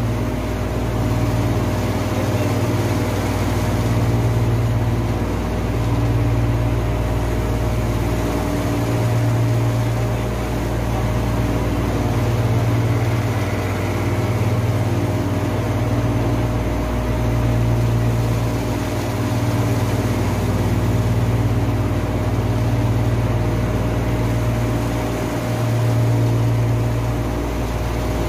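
Loud, steady drone of running air-conditioning plant machinery, compressors and fans, with a constant hum tone and a slow swell and fade every two to three seconds.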